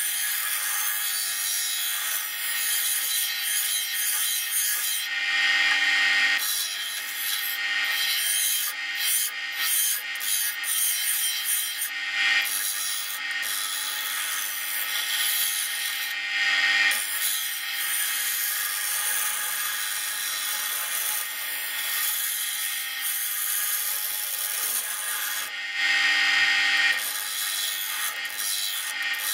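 Double bench grinder's abrasive wheel grinding the steel blade of an old meat axe, reshaping its profile: a steady gritty hiss over the motor's faint hum, with four louder surges as the steel bites harder into the wheel.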